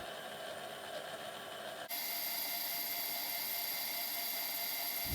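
Electric kitchen mixer motor whirring steadily while kneading pizza dough, turning a little louder and brighter about two seconds in.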